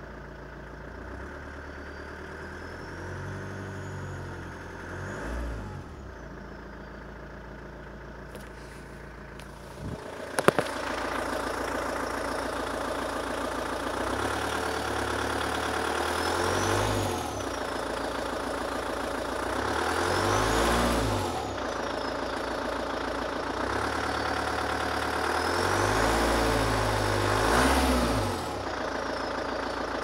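1999 Volvo V40's 1.9-litre turbodiesel idling and revved four times, the first rev gentler; with each rev a high turbo whistle rises and falls with engine speed, which the owner takes as a possible sign of a bad turbo behind the car's poor performance. About ten seconds in there is a sharp click, after which the engine is louder.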